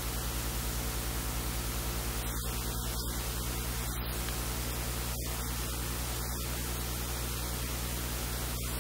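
Steady hiss with a low electrical mains hum, unchanging throughout: background noise of the recording.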